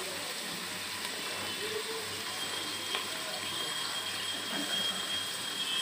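Sliced onions sizzling steadily in hot oil, being browned.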